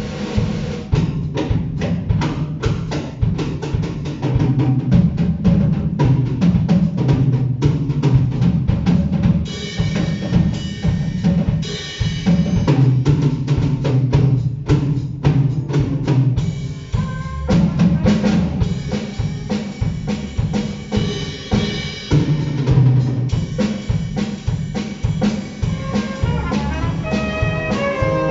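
Live jazz played by a large orchestra: a drum kit plays busily with snare and bass drum over a low double bass line. Ensemble chords come in briefly about ten seconds in and again past twenty seconds, and a melody line enters near the end.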